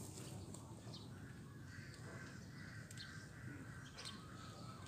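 Faint outdoor background with a bird calling a couple of times and a few light clicks.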